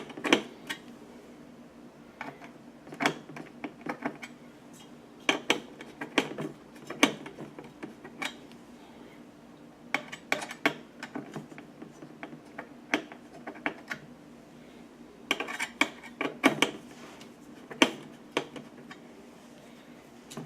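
Screwdriver working the two mounting screws of a Noctua CPU cooler, tightening them alternately, in scattered sharp metallic clicks and clinks, some in quick clusters.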